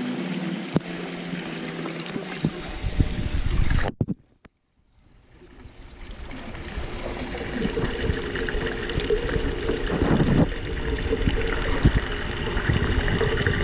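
Swimming-pool water sloshing and splashing. The sound cuts out almost completely for about a second, about four seconds in, then fades back up.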